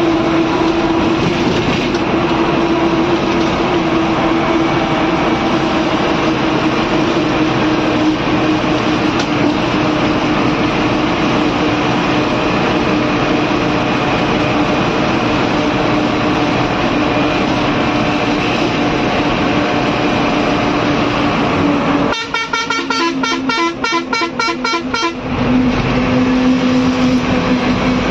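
Bus engine and road noise heard from inside the driver's cab while driving, a steady drone whose pitch sinks slowly. About 22 seconds in, a horn sounds in rapid, even pulses for about three seconds.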